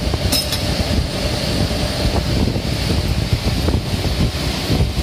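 Steady low rumble of machine-shop machinery around a lathe, with one sharp click about half a second in.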